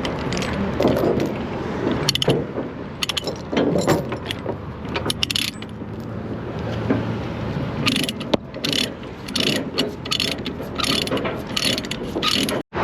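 Irregular metal clanking and rattling of heavy equipment being loaded, over a steady engine rumble. The sound cuts off abruptly near the end.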